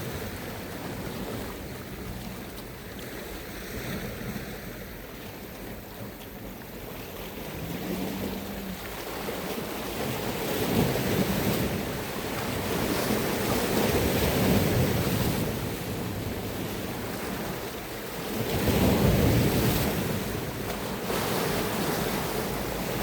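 Sea waves breaking and washing onto the shore, swelling every few seconds, with wind buffeting the microphone.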